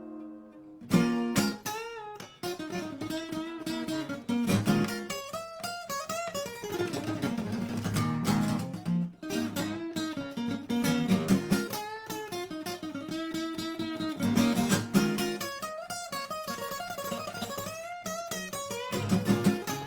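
Acoustic guitar playing an instrumental passage of a song: a picked melody over chords, with quick successive notes.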